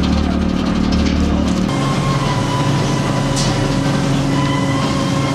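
Fishing boat's engine running with a steady low drone. About two seconds in the hum abruptly changes to a different, somewhat higher drone.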